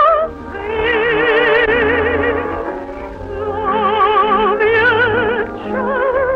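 Operatic singing: a high voice holding long notes with a wide, even vibrato, dipping briefly about three seconds in before the next phrase.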